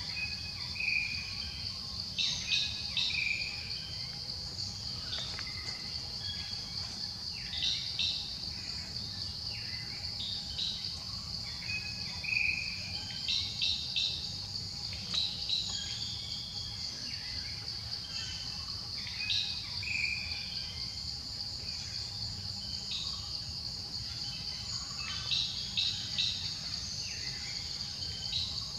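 Steady high-pitched drone of insects, with birds chirping in short runs of quick notes every few seconds.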